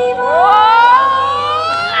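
A loud cheering whoop: one long cry rising steadily in pitch, over crowd noise and music.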